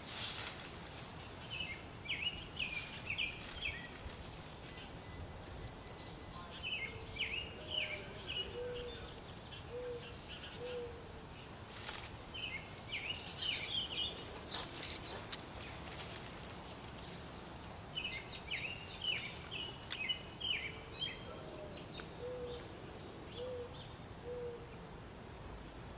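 Garden birds singing: repeated short, high chirping phrases every few seconds, and twice a lower phrase of four or five evenly spaced notes.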